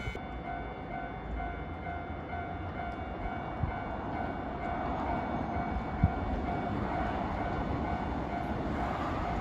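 Nankai Main Line train running on the track, a steady rumble with two single clunks from rail joints about three and a half and six seconds in.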